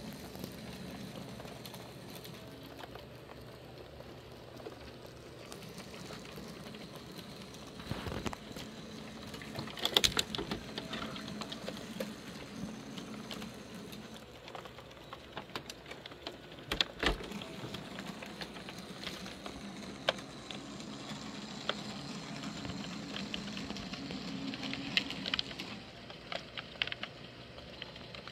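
Small motors and gear trains of animated miniature carnival pieces running with a steady whir and light mechanical clicking, with a few louder knocks about ten and seventeen seconds in.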